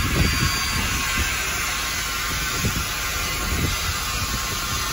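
Steady hiss of steam inside a standing steam locomotive's cab, with irregular low rumbling underneath.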